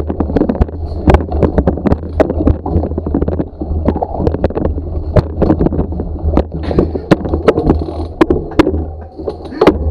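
A bicycle and its mounted camera jolting over stone paving and steps: a fast, irregular run of knocks and rattles over a steady low rumble.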